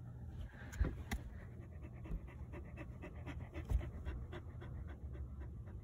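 Dog panting steadily inside a car, with a couple of light knocks about a second in and again near four seconds.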